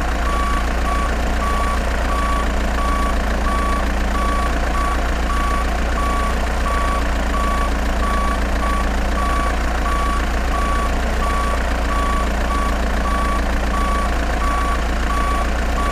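Reversing beeper of a remote-control model Caterpillar dump truck, a steady beep repeating about twice a second over a constant low engine hum.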